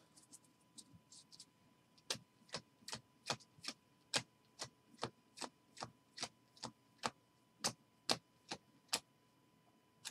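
Upper Deck hockey trading cards being flicked through one at a time, each card giving a sharp click as it snaps off the stack. After a few faint ticks, the clicks start about two seconds in and repeat about two to three times a second.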